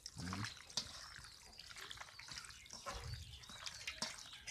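Faint, irregular wet squelching and squishing of raw chicken pieces and spice paste being mixed by hand in a stainless steel bowl.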